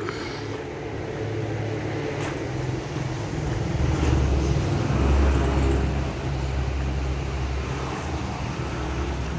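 Low rumble of a motor vehicle engine, growing louder about four seconds in and easing off after six, as if passing by.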